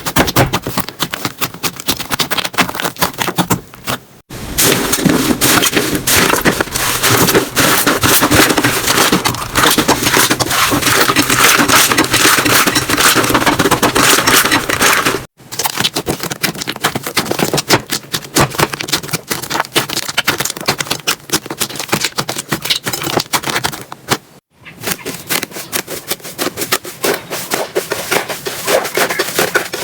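Slime being squeezed and pressed by hand, giving dense crackling and popping clicks. The sound breaks off abruptly about four, fifteen and twenty-four seconds in.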